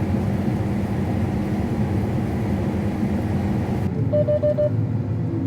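Heavy harvest machinery engine running steadily. About four seconds in the sound changes abruptly to another engine hum, with four quick, short beeps.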